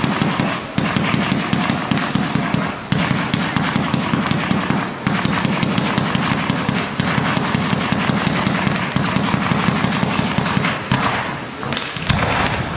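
Multi-shot firework battery firing a fast, continuous volley of launches as it sends up fans of comets, heard as dense rapid shots over a heavy rumble. It thins out near the end after a last heavy burst.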